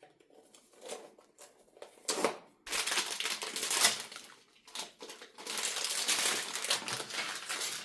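Blind-box packaging being handled and torn open: a few light taps and clicks, then about three seconds in a dense crinkling and crackling of crumpled packaging that keeps surging.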